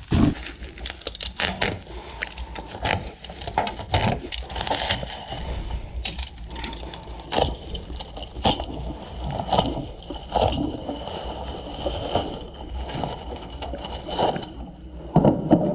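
Plastic parcel packaging being pulled apart and unwrapped by hand: irregular crinkling and crackling with scrapes and knocks.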